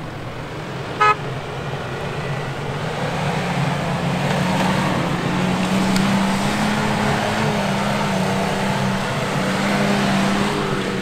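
Toyota Land Cruiser Prado's 4.0-litre V6 petrol engine working under load in soft sand, its note building from about three seconds in and then holding, with the hiss of sand thrown up by the tyres. A short car horn toot about a second in.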